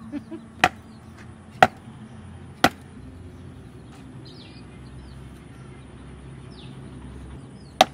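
A piece of wood struck down on the back of a boti blade to drive it through a large katla fish head: three sharp thwacks about a second apart, then a fourth near the end. Faint bird chirps in between.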